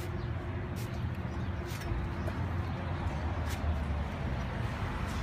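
Walking footsteps, about one a second, over a steady low hum and faint background voices.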